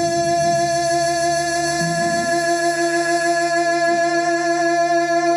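Live blues-rock band holding one long sustained note, with a low bass note underneath. The drums drop out about two and a half seconds in, as the song rings out to its end.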